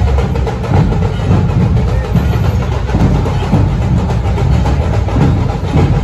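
Dhol-tasha troupe drumming: loud, continuous deep dhol beats.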